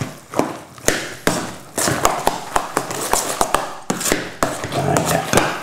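Wire potato masher stirring thick mashed potato and celeriac in a stainless steel saucepan, with repeated taps and scrapes of metal against the pan, two or three a second.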